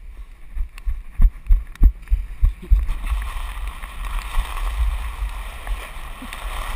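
Heavy running footfalls thump on the grass, then from about three seconds in a steady wet rushing hiss as a body slides along a wet plastic slip-and-slide sheet, with low rumble of wind and handling on the worn camera.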